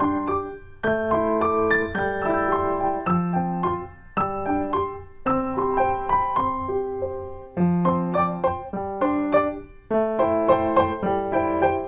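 Background piano music: a gentle solo piano playing chords and melody in short phrases.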